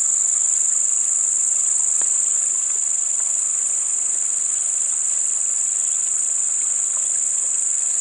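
Night-time insect chorus, likely crickets, making one continuous high-pitched trill.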